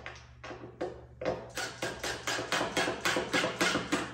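Cordless impact driver driving a screw into plywood: a few separate clicks, then, from about a second in, a quick even run of knocks, about five a second.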